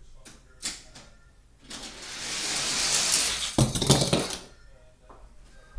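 Die-cast Hot Wheels cars rolling down a plastic track with a rising rush, then clattering and skittering onto a hard floor as they land from the jump, about three and a half seconds in.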